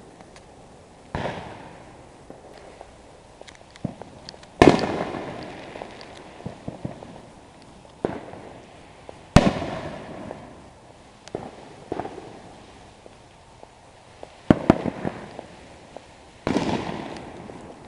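Consumer fireworks going off: about five loud sharp bangs a few seconds apart, each trailing off in a long echo, with smaller pops and crackles between them.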